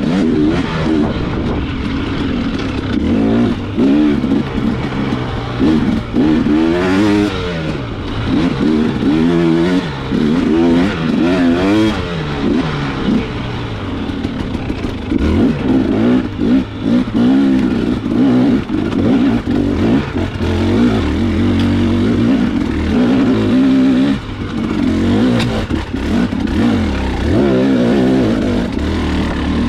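Enduro dirt bike engine running hard, its pitch rising and falling again and again as the throttle is opened and closed through the trail.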